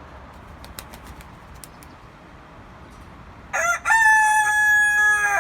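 Rooster crowing once, near the end: a short rising note, then a long held call that drops in pitch as it ends.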